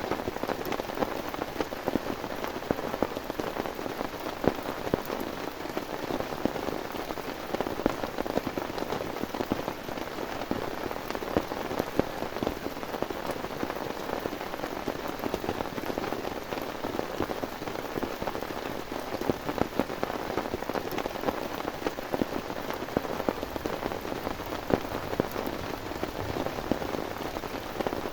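Heavy rain falling steadily, a constant hiss with a dense patter of sharp individual drop hits.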